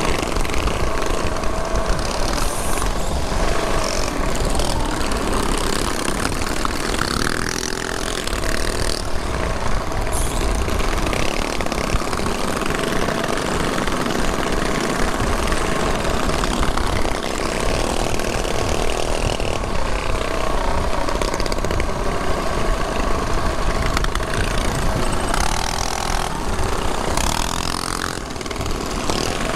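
Mini bike engines running in a group ride through city traffic, with wind rushing over the microphone. The engines rev up and down a couple of times.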